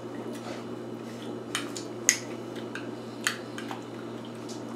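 A spoon clinking against a cup of soup several times while someone eats, over a steady low hum.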